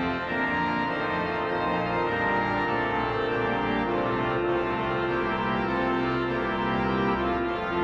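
Viscount Canticus 50 digital church organ playing sustained chords that change every second or so over a steady low bass.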